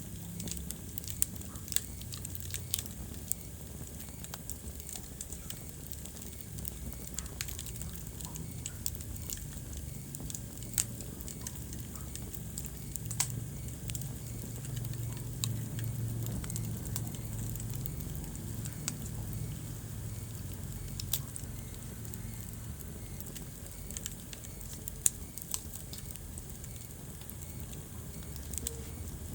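Wood fire burning in a fireplace: a steady low rumble of flames with irregular crackles and occasional sharp pops.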